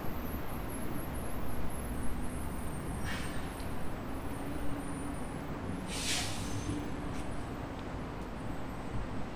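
City traffic ambience: a steady low rumble of road traffic, with two short hisses about three and six seconds in, the second louder.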